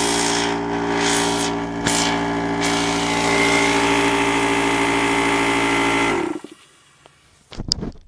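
Newly bought air compressor running steadily, with a few short hissing rushes of air in the first seconds, then shutting off and winding down about six seconds in.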